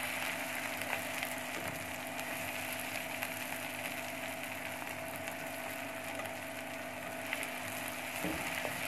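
Chopped onions and green chillies frying in hot oil in a nonstick pan, a steady sizzle, with a few light knocks of the slotted spatula against the pan as they are stirred.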